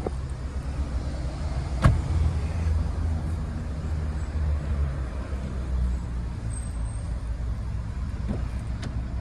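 Steady low motor-vehicle rumble, with one sharp click about two seconds in.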